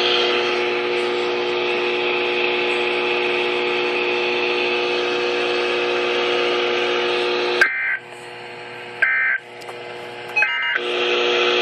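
NOAA Weather Radio receiver hissing with a steady low hum on dead air. About two-thirds of the way in, three short warbling data bursts about a second and a half apart: the SAME/EAS end-of-message code that closes the Required Weekly Test.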